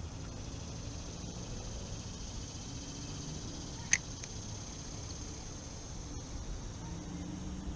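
Steady high-pitched insect chirring from the surrounding trees and grass over a low outdoor rumble, with one sharp click about four seconds in.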